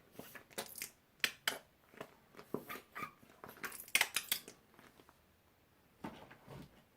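Slime being kneaded and stretched by hand, making sharp sticky clicks and crackles in quick, irregular runs. The sounds pause about five seconds in, then one short run follows.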